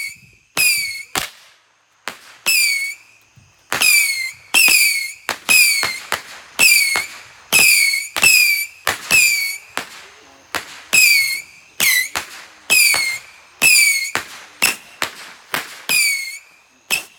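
Handheld firework firing a rapid string of whistling shots, about two a second with a couple of short pauses. Each shot starts with a sharp pop and carries a short whistle that drops in pitch.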